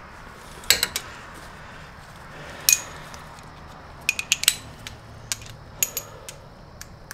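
Metal hand tools clinking as they are handled and set down. Irregular sharp clicks come a few at a time, with a quick cluster of four or five a little past the middle.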